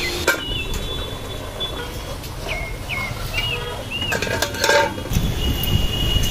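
A few short bird chirps, with sharp metallic clinks of a steel plate lid against a cooking pot about four and a half to five seconds in, then a low rumble rising near the end.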